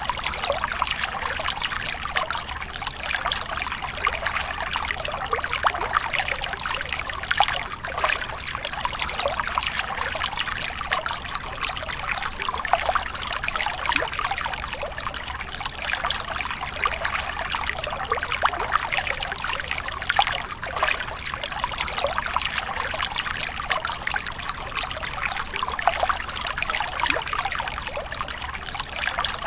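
A small trickle of water falling off a rock ledge into a shallow pool, splashing steadily in a continuous dribble.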